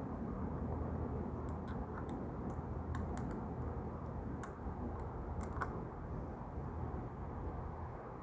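Yamaha Mio Soul scooter's single-cylinder engine running steadily, with scattered light clicks and rattles over the hum.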